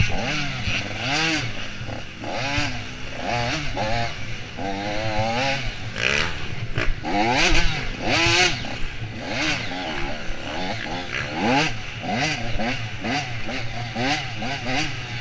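Dirt bike engine revving up and down over and over, its pitch rising and falling with each burst of throttle and shift as the bike is ridden hard over rough trail.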